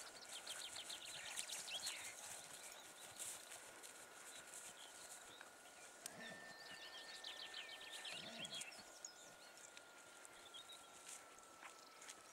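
Faint open-air ambience: quick runs of high chirps come and go over a thin, steady high tone.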